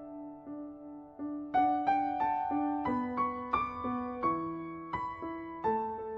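Background music: gentle solo piano playing a slow melody, with single notes and chords that ring and fade, growing louder about a second and a half in.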